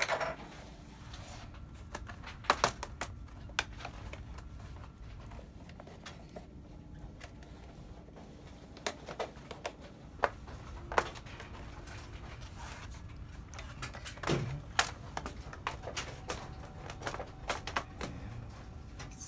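Scattered sharp plastic clicks and snaps as the plastic bottom cover of an Acer Chromebook is pried loose and its clips pop free, with a few louder knocks of the case being handled about two thirds of the way through.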